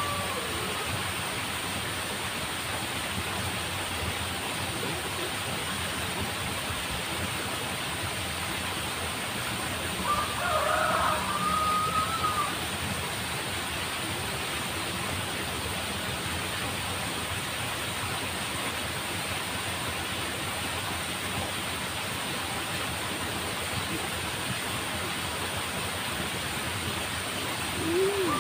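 A rooster crows once about ten seconds in: a rising call that then holds its pitch for a couple of seconds. It sits over a steady rushing background noise.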